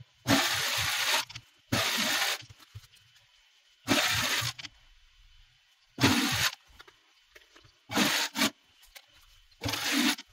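Brother computerized sewing machine stitching in six short runs, starting and stopping each time as the fabric is guided through, each run about half a second to a second long.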